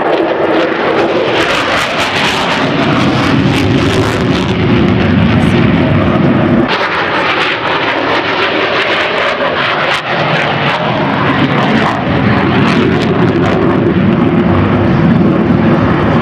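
Grumman F-14 Tomcat's twin jet engines in a loud, continuous roar as it flies a display pass, with its afterburners lit by the end. The sound changes abruptly about seven seconds in, losing some of its deepest rumble.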